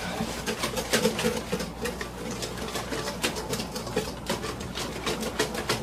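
Wire whisk beating flour-and-milk crepe batter in a stainless steel bowl: a rapid, even run of clicking strokes against the metal, whisking the lumps out.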